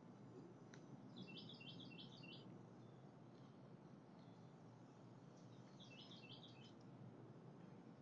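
Faint songbird calling in two quick chattering phrases of rapid high notes, the first about a second in and the second around five and a half seconds, over a low background hum.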